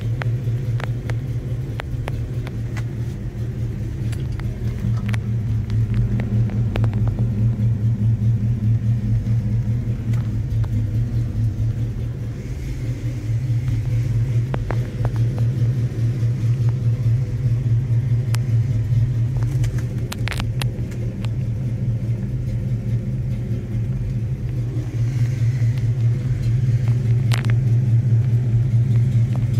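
1967 Chevrolet Camaro's engine idling steadily, an even low rumble heard from inside the cabin, with a few light clicks over it.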